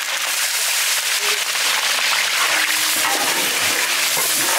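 Large metal cooking pot of foamy water at a rolling boil, sloshing as a long ladle stirs it, with steady crackling throughout.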